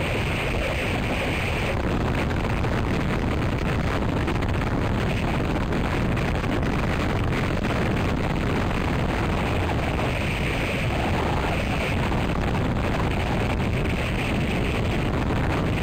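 Strong storm wind buffeting the microphone and rushing through pine branches: a steady, heavy rumble, with a brighter hiss swelling briefly near the start and again about two-thirds of the way through.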